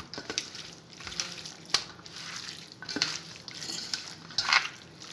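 A hand squishing and mixing chicken pieces through a wet yogurt-and-spice marinade in a steel plate, a soft irregular squelching. A few sharp knocks against the steel plate stand out, about two, three and four and a half seconds in.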